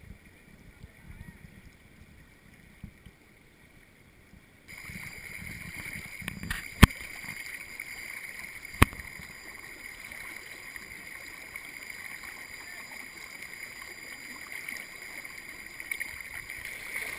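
Steady wash of flowing muddy floodwater at the surface, faint at first and suddenly fuller and louder about five seconds in. Two sharp clicks come about two seconds apart near the middle.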